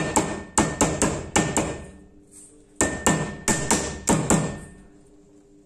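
Light, quick hammer taps on steel pliers, metal on metal with a short ring. The taps drive a spiral shower hose back onto its metal fitting. They come in two rapid runs of about half a dozen strikes each, with a short pause between.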